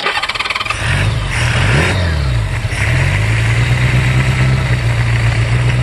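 1981 Honda GL1100 Gold Wing flat-four engine, running on a single Solex 30 PICT-1 carburetor conversion, being started: a second of cranking, then it catches, swings up and down in speed, and settles into a steady idle.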